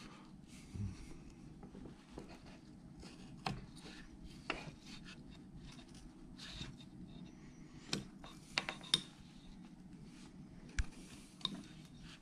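Carving knife paring small cuts in a wooden figure: faint, irregular short scrapes and clicks of the blade cutting into the wood as the teeth are rounded over under the lip.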